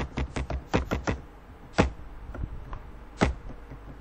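Computer keyboard typing: a quick run of keystrokes, then two louder single clicks about a second and a half apart.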